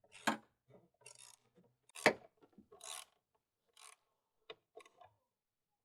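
Hands handling installation parts: scraping and rubbing with two sharper knocks, then a few small clicks near the end.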